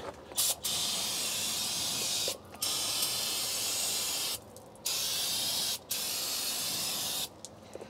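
Aerosol spray can hissing in about four bursts of one to two seconds each, with short pauses between them.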